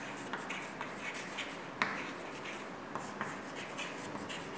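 Chalk scratching and tapping on a chalkboard as words are written in short strokes, with one sharper tap about two seconds in.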